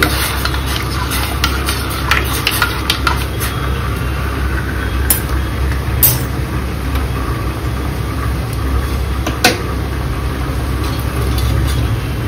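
A steady low machine hum runs under scattered clinks and knocks of kitchen utensils against metal pots and bowls. A few sharper clinks stand out through the middle and later on.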